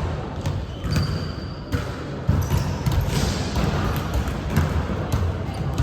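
Volleyball game sounds in a gym hall: the ball thudding and bouncing off hands and floor several times, over a bed of players' and spectators' voices.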